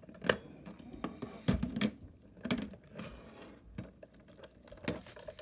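A Princess rotary phone being handled and turned over: a few scattered sharp clicks and knocks, the loudest about a third of a second in and around a second and a half to two seconds in.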